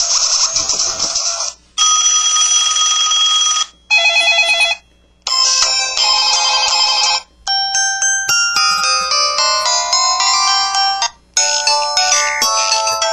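LG KP3800 mobile phone's built-in ringtones and sound effects played one after another: about six short clips, each one to four seconds long, cut off with brief silences between. The later ones are electronic melodies of quick notes.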